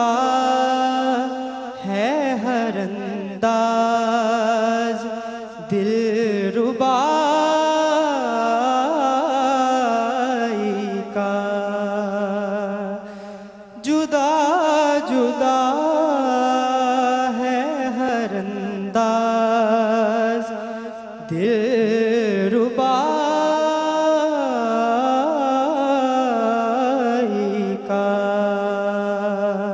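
A solo male voice sings a hamd, a devotional Urdu hymn in praise of God. He draws out long melismatic phrases with wavering held notes and pauses briefly for breath between phrases every several seconds.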